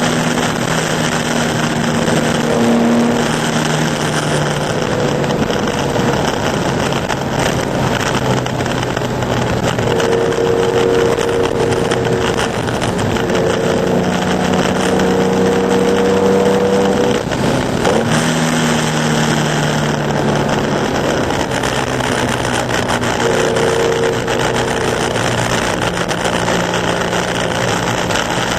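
Air-cooled flat-six of a 2.0-litre Porsche 911 race car running hard on a soaked track. Its pitch climbs and drops several times through gear changes, with a short break about two-thirds of the way through. A steady hiss of water spray and wind runs underneath.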